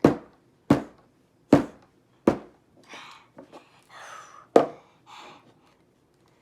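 A toy digging tool knocking sharply against a hard dig block, about one strike every three-quarters of a second, then scraping and gouging at it with one more hard knock in the middle.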